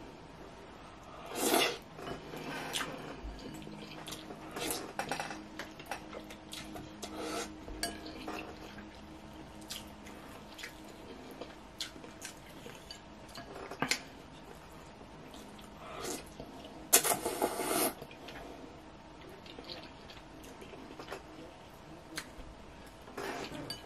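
Mukbang-style eating: a fork and wooden spoon clink and scrape against a glass bowl as noodles are gathered, with scattered small clicks. There are louder slurps of noodles about a second and a half in and a longer one around two-thirds of the way through.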